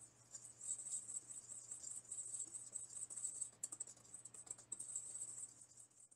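Dry bread dough ingredients (flour, sugar and salt) being stirred by hand in a stand mixer's bowl, a rapid, irregular run of light clicks and scrapes of the utensil against the bowl.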